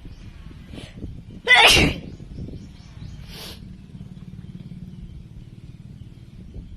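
A woman sneezes once, a short, loud burst about one and a half seconds in. A faint quick breath comes just before it and a short breathy hiss about two seconds after.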